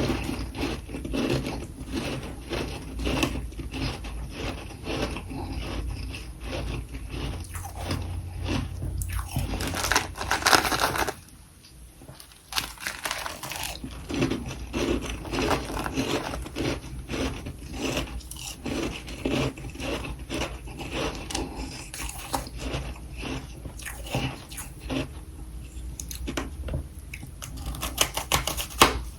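Close-up crunching and crackling in quick repeated strokes, a few a second, with a short quiet break about eleven seconds in.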